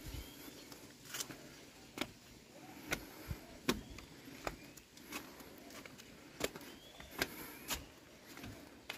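Footsteps of a person walking at a steady pace, about one step a second, over a low outdoor background hiss.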